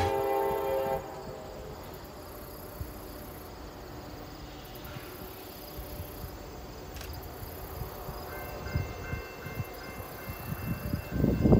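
Faint, distant freight train running on the line, with insects trilling in the grass; a steady high trill comes in about eight seconds in. Wheel noise from passing tank cars fades out in the first second.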